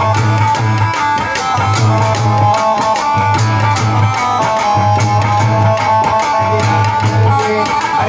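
Instrumental interlude of a live bhajan: a steady, fast drum beat with a sustained melody line held over it and a pulsing low bass, no singing.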